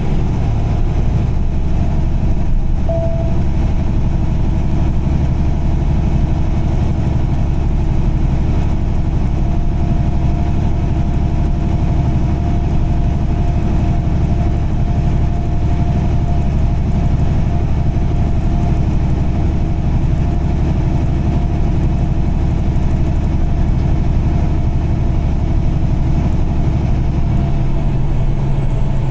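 A car driving at a steady speed: a constant low engine hum and tyre and road noise, with no change through the stretch.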